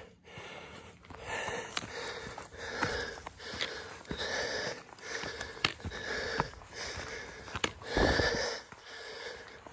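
A hiker puffing hard close to the microphone, quick breaths about once a second from the effort of climbing a steep trail, with sharp footstep clicks on the dirt path between them.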